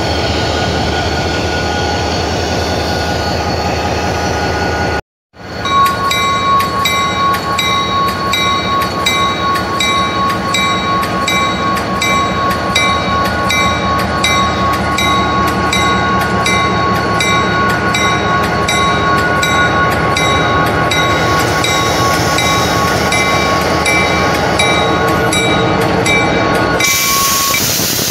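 EMD DDM45 diesel-electric locomotive with a 20-cylinder 645 diesel engine, running close by with a steady, loud engine drone. After a brief cut a few seconds in, the drone carries on with a steady whine and an even, regular clicking as the locomotive rolls slowly past. A loud hiss comes in near the end.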